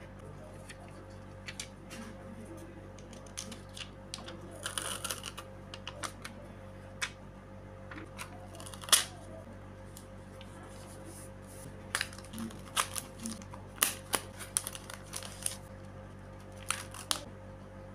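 Hands handling paper and plastic sticker sheets on a desk: irregular crinkles, taps and clicks. There is a brief run of crinkling about five seconds in, one sharp click near the middle, and a busier cluster of clicks later on, all over a steady low hum.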